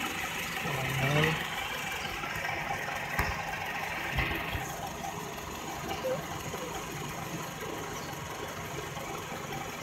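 Toyota Vios four-cylinder VVT-i engine idling steadily with the air conditioning switched on, during a refrigerant recharge. A couple of light knocks come about three and four seconds in.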